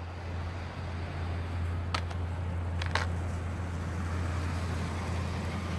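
1988 Buick Electra Park Avenue driving slowly toward the listener, a low steady rumble that grows gradually louder as it approaches, with two faint clicks about two and three seconds in.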